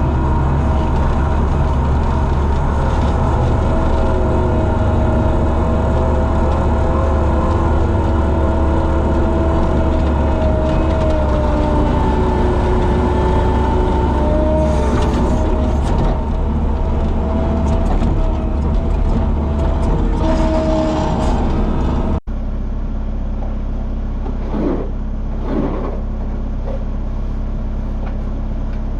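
Skid loader engine running hard, with a whine that wavers up and down in pitch as it works. About 22 seconds in it cuts abruptly to a steadier, duller engine sound with a couple of short knocks.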